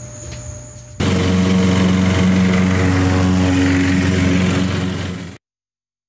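An engine running steadily, cutting in suddenly about a second in and cut off abruptly a little past five seconds.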